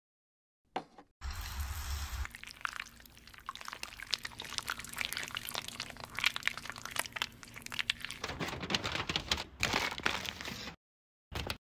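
Crisp crackling and clicking as a thick chocolate and chopped-nut coating is worked over a waffle-cone shell, then gold foil crinkling as it is pressed flat around the ball near the end. The sounds come in separate edited snippets, with dead-silent gaps at the start and near the end.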